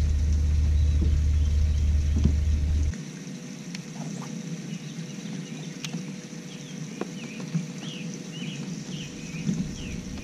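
Low wind rumble on the microphone that stops abruptly about three seconds in. Then quiet lakeside ambience with a few light clicks, and near the end a run of short, quick bird chirps.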